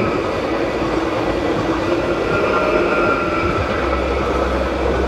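Electric passenger train passing over a level crossing at speed: a steady, loud rush of wheels on rails with a faint whining tone above it.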